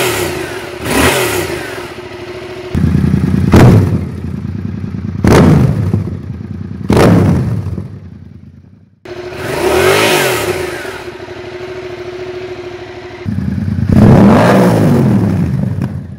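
Yamaha MT-07 parallel-twin engine idling with a series of quick throttle blips, each rising sharply and falling back, about six in all. The recording changes abruptly a few times as different clips follow one another.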